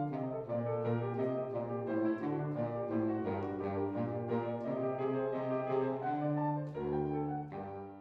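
Saxophone and piano playing a classical piece: long held saxophone notes over moving piano notes. It closes on a final chord about seven and a half seconds in that fades away.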